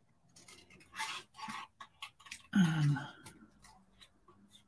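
Small craft scissors snipping through stamped cardstock in a few short, sharp cuts. A brief murmur from a person, falling in pitch, comes a little past halfway and is the loudest sound.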